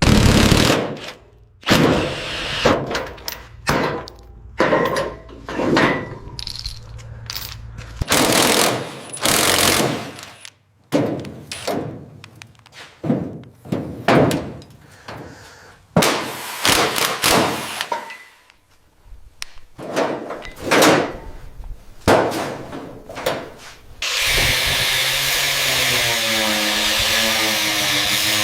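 Workshop tool sounds in quick succession: short bursts of power-tool running and sharp knocks. In the last few seconds comes a steady hissing noise with a wavering whine under it.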